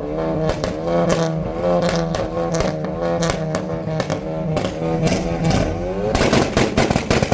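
Sports car engine revved in repeated blips, its exhaust crackling between them. Near the end a rev climbs and breaks into a rapid string of loud exhaust pops and bangs.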